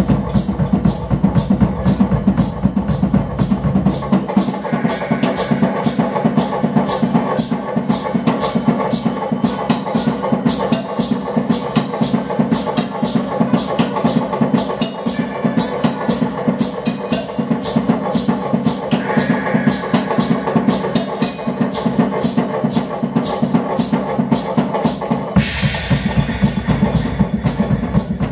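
Music with drums, a fast steady beat played through the room. The deep bass drops out about four seconds in and comes back near the end with a brief burst of hiss.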